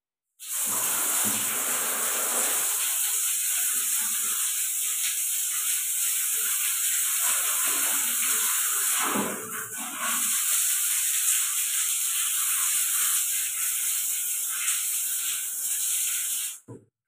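Water running steadily from a tap, a hissing spray. It starts about half a second in, falters briefly about halfway, and is turned off near the end.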